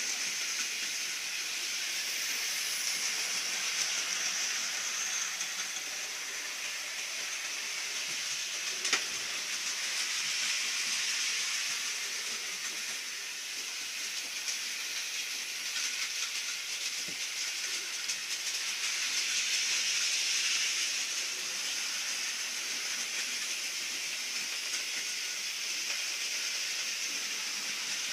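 A steady hissing noise that slowly swells and fades, with one sharp click about nine seconds in.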